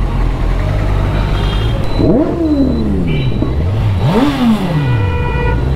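Kawasaki Ninja 1000's inline-four engine ticking over, blipped twice: each rev climbs quickly and drops back over about a second.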